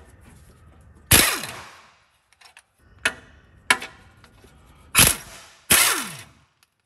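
Cordless impact wrench fired in five short bursts to break loose the exhaust pipe-to-manifold nuts. The first and last bursts trail off in a falling whine as the motor spins down.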